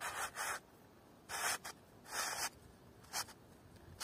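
Short scraping rubs, several in a row, each lasting up to about half a second, from the bow saw blade and its fittings being handled and worked by hand.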